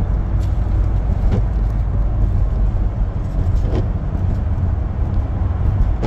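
Steady low road and engine rumble heard from inside a vehicle's cabin while it drives at highway speed.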